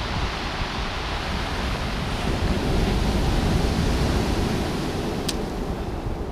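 Surf breaking and washing up a shingle beach, with wind buffeting the microphone; the wash swells and ebbs about halfway through.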